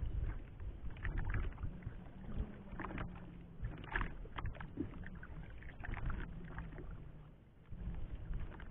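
Sounds on board a small bamboo fishing raft at sea: water slapping and rumbling around the hull, with scattered knocks and clicks of gear being handled on the wood. A faint low hum sounds for a few seconds in the middle.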